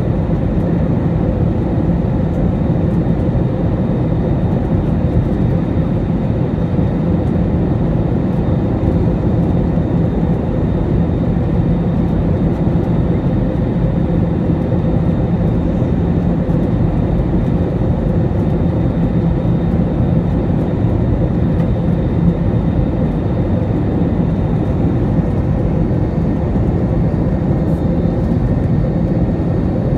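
Cabin noise of an Airbus A320 on final approach, heard from a seat over the wing: a steady rush of engine and airflow noise with a few faint humming tones running through it.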